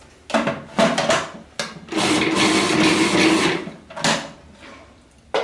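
Food processor pulsed in several short bursts, then run steadily for about a second and a half, then pulsed once more, blitzing a crumbly macadamia-nut cheese mix.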